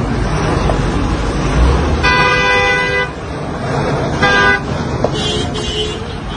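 Car horns honking: a long blast about two seconds in, a short one a second later, then a higher-pitched horn near the end, over steady traffic noise.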